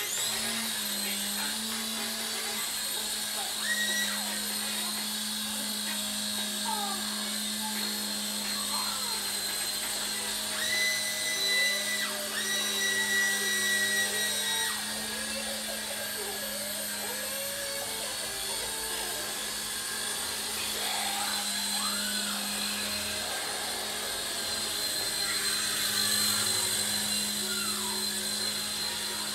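Small electric RC toy helicopter in flight: its motors and rotors whir with a steady hum and a high whine. The pitch shifts slightly as the throttle changes, and it grows louder twice.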